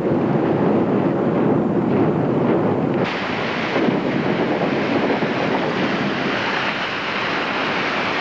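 A ship's bow breaking through first-year sea ice: a loud, dense rushing noise of ice breaking and grinding along the hull, with wind on the microphone. About three seconds in it changes abruptly to a steadier, hissier rush as broken ice and water stream past the bow.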